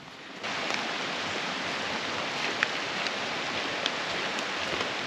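Steady hiss of rain, with a few single drops ticking close by; it comes in suddenly about half a second in.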